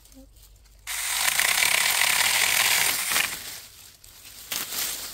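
Saker 4-inch cordless mini electric chainsaw cutting through wood: a loud cut starts about a second in and lasts a little over two seconds, followed by a shorter, weaker burst near the end.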